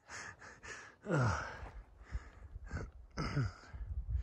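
A man breathing hard from exertion, with two long voiced sighs falling in pitch, about a second in and again past three seconds, while climbing a steep slope under a heavy pack.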